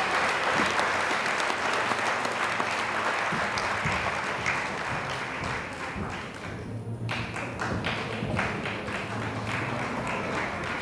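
Theatre audience applauding. The clapping is dense at first, then thins about two-thirds of the way through into scattered individual claps as it dies down.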